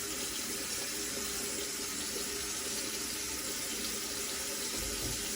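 Bathroom sink tap running steadily, a constant stream of water into the basin.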